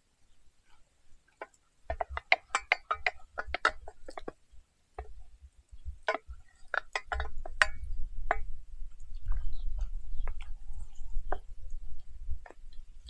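Quick runs of light clicks and clinks from metal cooking gear and charcoal being handled around a Dutch oven. The clicks come in two clusters, and a low rumble joins in about seven seconds in.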